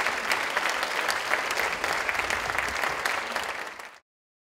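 Audience applauding steadily, a dense patter of many hands clapping, which cuts off abruptly to silence about four seconds in.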